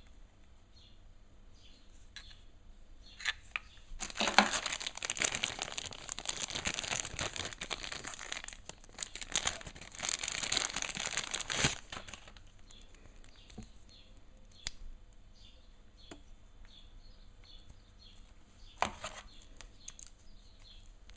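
Packaging crinkling and rustling as it is handled, a dense crackle lasting about eight seconds from a few seconds in, with a few separate clicks before and after.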